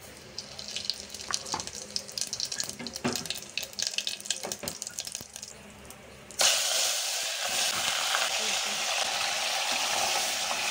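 Hot oil crackling and popping with garlic frying in it. About six seconds in, a sudden loud, steady sizzle starts as raw buffalo meat goes into the hot oil.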